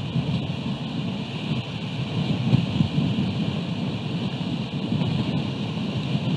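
Wind rumbling on an outdoor camera microphone over a steady hiss of rain.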